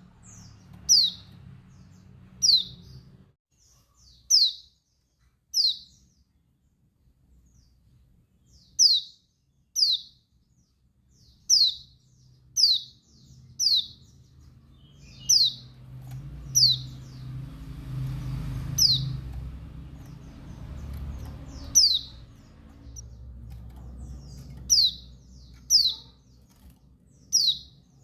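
Female white-eye (pleci dakun Bali) calling: short, sharp chirps that drop in pitch, one about every second with uneven gaps. It is a call used to rouse and provoke male white-eyes. A low rumble sits underneath in the middle stretch.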